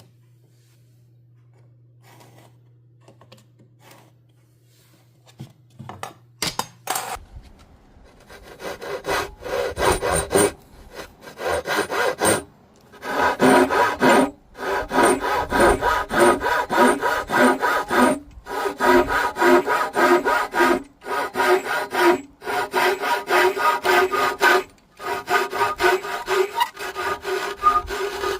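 Hand saw cutting wood in quick back-and-forth strokes, in runs of a second or two with short pauses. A few light knocks come before the sawing starts.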